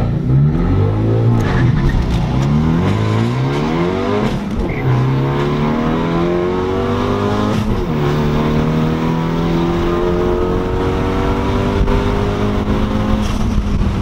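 Hyundai Veloster's four-cylinder engine, heard from inside the cabin, accelerating hard at full throttle. It revs up through the gears, and the pitch falls at a quick upshift about four and a half seconds in and again about eight seconds in, then climbs each time, more slowly in the last gear.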